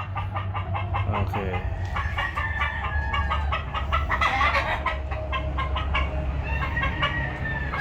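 Gamefowl flock: many chickens clucking in quick succession while roosters crow over them, several long gliding crows overlapping.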